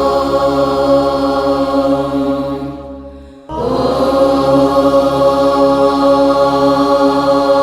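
Background music of sustained, drone-like held chords, like a chant. The first chord fades out about three seconds in, and a new one comes in abruptly half a second later.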